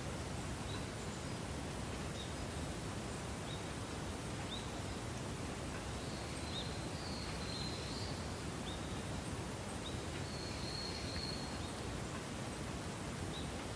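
Faint small-bird calls: short, high, falling notes about once a second, with a couple of longer twittering phrases, over a steady outdoor background hiss and rumble.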